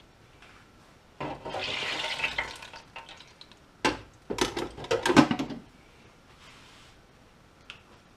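Clatter of an electric deep fat fryer's basket and stainless steel lid being set back in place: a sharp click, then a run of metal knocks and rattles. Shortly before that comes a hiss lasting under two seconds.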